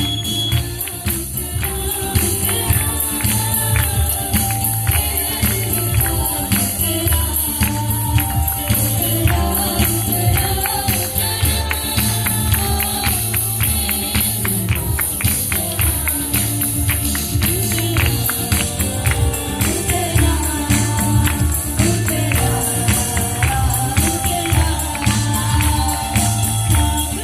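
Gospel worship music: a choir singing over a band with tambourine and a steady, heavy bass beat.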